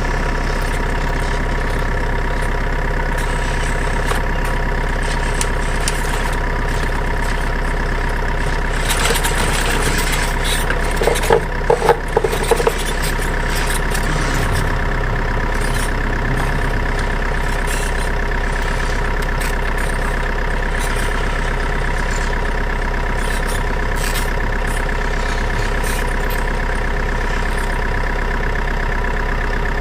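Steady engine idling sound, even and unchanging, with a stack of fixed tones like a truck's diesel at idle. A few clicks and short louder blips come in about ten to thirteen seconds in.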